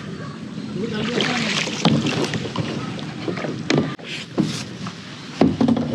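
Kayak paddles dipping and splashing in the water, several irregular strokes over a constant wash of water.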